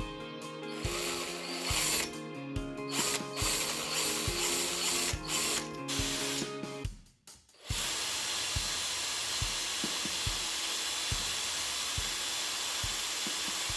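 Power drill boring out a sheared-off screw in a carburettor body: short bursts at first, then running steadily from about halfway through. A steady beat of background music runs underneath.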